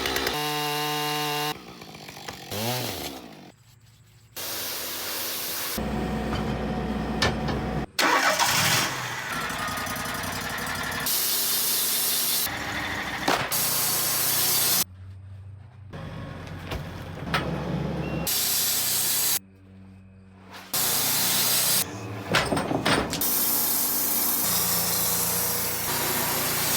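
Sawmill running and cutting into a hard sugar maple log: the engine runs and the blade saws through the wood, heard in short clips that change abruptly every second or two.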